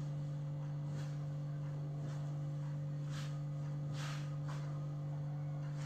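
A steady low hum with no break, and two faint brief swishes about three and four seconds in.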